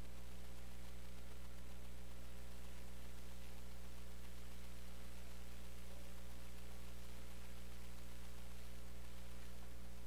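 Steady electrical mains hum with its overtones and a faint hiss underneath, unchanging throughout.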